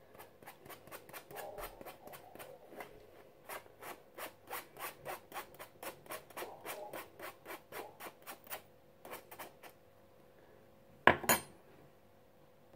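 Icing sugar being scraped through a mesh sieve, a rhythmic rasping at about three strokes a second, pushing lumps through the mesh. The strokes stop about ten seconds in, and a quick double knock follows about a second later.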